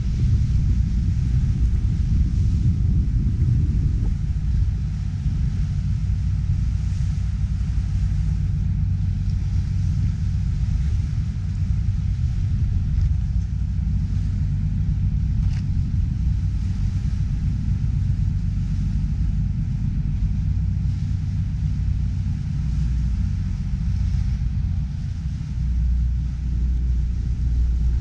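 Ferry boat's engine running at steady cruising speed: a constant low rumble that holds the same level throughout.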